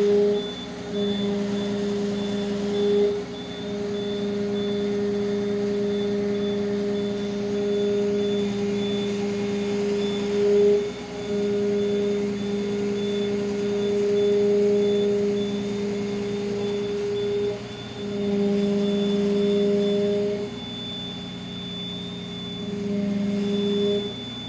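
Magirus turntable-ladder fire engine running with its engine and hydraulics working the ladder, a steady drone that rises and drops in level every few seconds as the ladder moves. A high, fast-pulsing beep sounds throughout.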